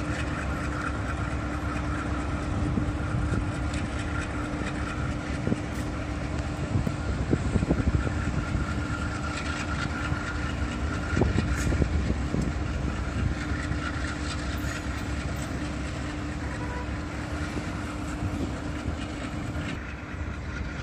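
C26-7MP diesel locomotives towing an SD80ACe locomotive slowly past, with a steady engine drone, a low rumble of wheels on rail, and heavier knocks about 7 and 11 seconds in. The sound drops off near the end as the train moves away.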